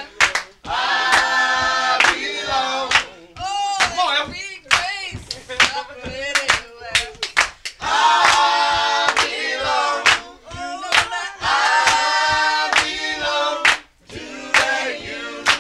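A small group of men singing together unaccompanied, to steady rhythmic hand clapping.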